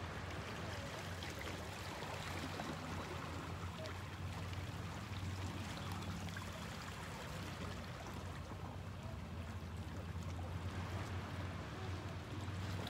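Gentle ripples lapping and trickling over shallow rocks at the water's edge, with a steady low hum underneath.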